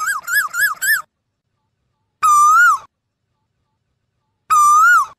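Asian koel calling. A quick run of about five rising-and-falling notes comes first, then two single longer notes a couple of seconds apart, each swelling slightly in pitch and dropping at the end.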